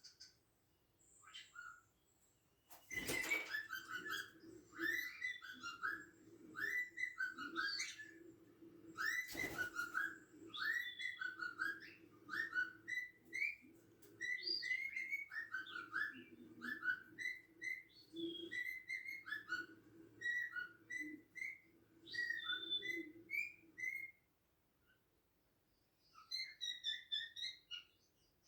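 Cockatiel whistling its song: a long string of short rising and falling whistled notes, pausing briefly near the end before a few more notes. Two sharp clicks are heard, about three seconds in and again near ten seconds.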